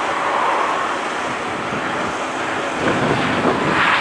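Airbus A320neo's Pratt & Whitney PW1127G geared turbofan engines running at taxi power, a steady rushing noise mixed with wind on the microphone, swelling near the end.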